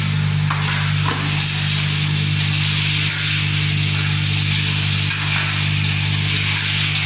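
Industrial walnut-cracking machine and sorting line running: a steady electric-motor hum under a continuous dense hiss from the shell-aspiration and sorting system, with a few faint clicks.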